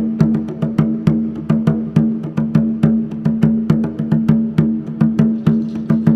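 Ancient-Mexican-style percussion music: quick, evenly spaced strikes on a wood-block-like instrument, several a second, over a steady low droning tone.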